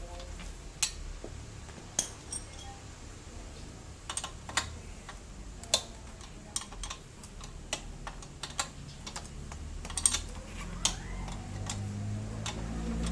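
Sharp metal clicks and clinks from hand tools on the scooter's fasteners, coming irregularly, a few seconds apart at times and closer together at others, as the rear shock bolts are worked loose. A low hum swells in near the end.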